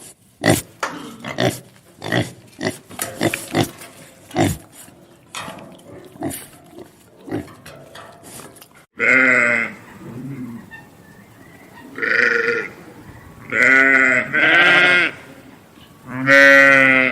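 Pig grunting and snorting in a quick run of short grunts. After a cut about nine seconds in come about five quavering bleats from a sheep or goat, each up to a second long.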